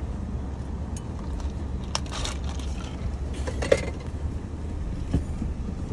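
Car engine idling steadily, heard from inside the cabin, with a few brief clicks and rustles of handling about two seconds in, again past the middle, and near the end.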